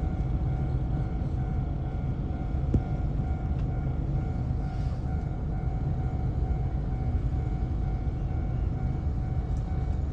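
Steady low rumble and a constant hum from a stationary streetcar, heard from inside the car, with a single sharp click about three seconds in.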